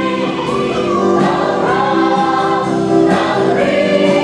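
Several voices singing together in long held notes, the chorus of a stage song.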